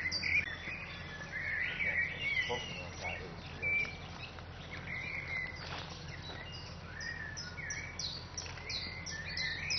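Songbirds singing outdoors: runs of quick, high falling notes and warbling phrases from more than one bird, over a steady low hum.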